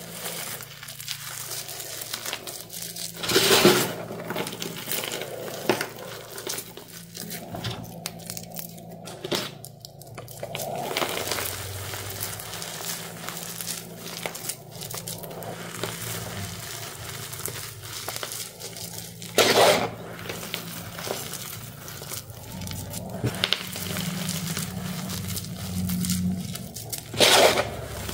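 Hands crushing and crumbling dry, crunchy powder clumps (glitter bombs) mixed with glitter, a steady gritty rustle of falling powder and crumbling lumps. Three handfuls crunch louder: one near the start, one about two-thirds through and one near the end.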